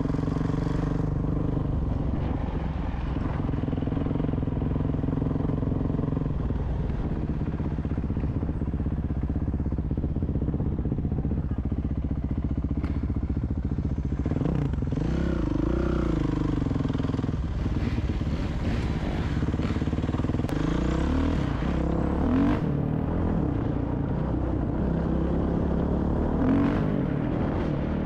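A 450 dirt bike's engine running steadily, with the revs rising and falling a few times past the middle and again near the end.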